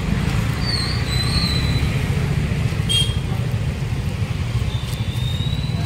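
Steady low rumble of road traffic, with a few faint high squeals and a short click about three seconds in.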